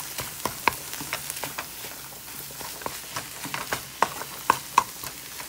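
Ground beef and onion sizzling in a hot nonstick frying pan while being stirred with a wooden spatula: a steady sizzle with sharp clicks and knocks of the spatula on the pan, the loudest a few times in the second half.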